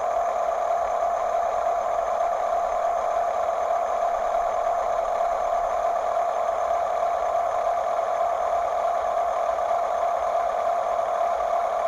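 Small electric motor and gearing of a radio-controlled toy construction vehicle, running with a steady whine.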